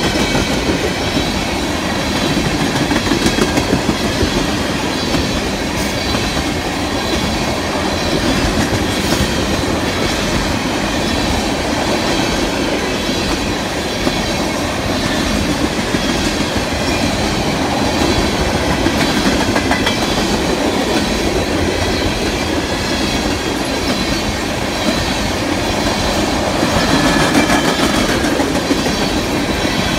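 A freight train of empty ethanol tank cars rolling past close by, its steel wheels clattering steadily over the rails.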